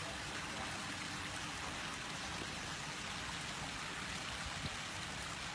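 Water splashing steadily into a fish pond, an even rushing hiss that does not let up.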